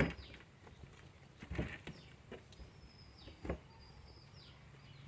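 Biryani being tipped from a metal pot onto an aluminium plate: a few soft knocks and thumps of rice and pot against the plate, the first the loudest. Birds chirp with short falling notes in the background.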